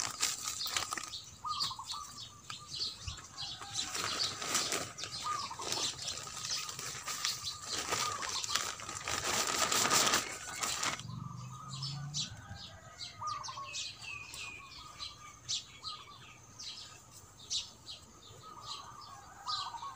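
Coconut-coir potting soil pouring and rustling out of a woven plastic sack into a concrete planter for about eleven seconds, then stopping abruptly. After that, small birds chirp.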